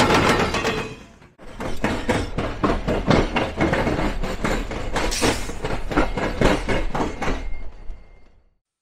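A Norfolk Southern double-stack train's passing noise ends abruptly about a second in. A CSX locomotive and its slug then roll over the track crossing diamonds, the wheels knocking sharply over the rail gaps about three or four times a second. The knocking fades out near the end.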